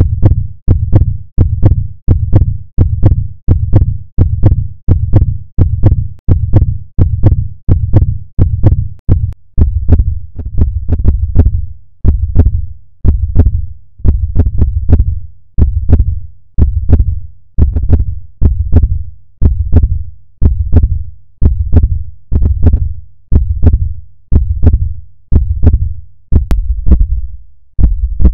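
Heartbeat sound effect: a steady train of deep, loud thumps, a little under two a second at first, slowing to about one a second after about ten seconds.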